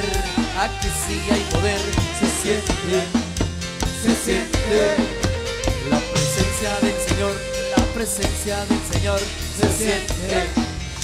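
Live band music with a drum kit and timbales playing a steady, fast dance beat, cowbell and rim strikes on top of the pitched band instruments.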